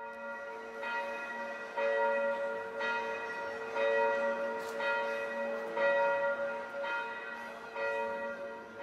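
A peal of church bells ringing, a new stroke about once a second, each one ringing on into the next.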